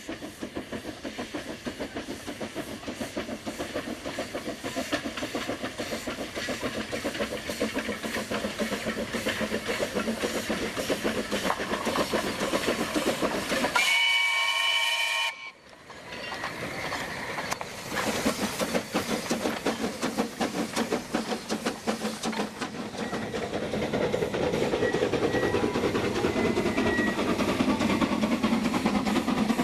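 C2 class 0-8-0 narrow-gauge steam locomotive chuffing with rapid exhaust beats and hissing steam. It gives one short steam whistle blast about halfway through, after which the sound cuts off abruptly and the chuffing resumes, growing louder near the end.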